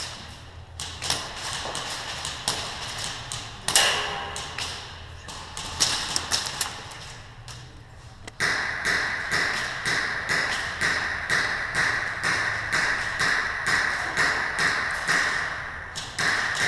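Airsoft gunfire in an indoor arena: scattered sharp clicks and taps of shots and BBs striking. About eight seconds in, a steady hiss sets in, with rapid clicks running over it.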